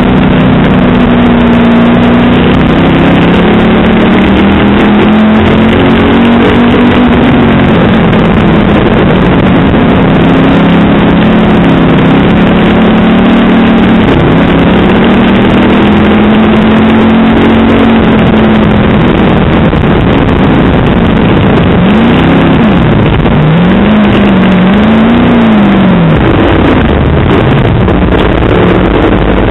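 Hobby stock race car's engine heard from inside the car at racing speed, loud and continuous, its pitch rising and falling as the driver accelerates and lifts. Near the end it swings up and down several times in quick succession.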